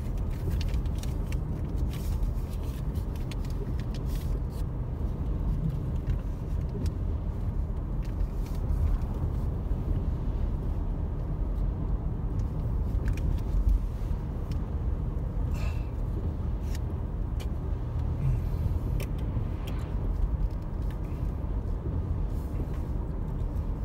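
Road noise inside a moving car: a steady low rumble of engine and tyres on damp pavement, with scattered light clicks and taps.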